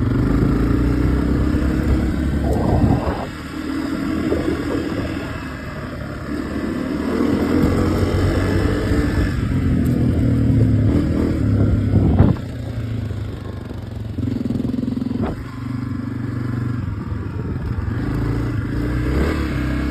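Motorcycle engine running at varying speed, its pitch stepping up and down as the rider opens and eases the throttle, with a few quick revs along the way.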